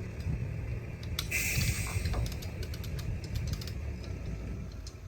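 Heavy diesel machinery running with a low rumble, over scattered clicks and knocks and a short hiss about a second and a half in.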